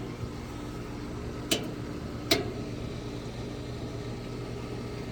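A 3-ton central air conditioner's outdoor condensing unit running with a steady, low hum. Two sharp clicks come about a second and a half in and again under a second later.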